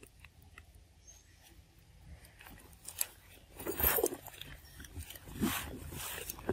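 Leaves and twigs rustling and crackling as young monkeys clamber through a tree, with a few scattered clicks and louder bursts of crackling about halfway through and again near the end.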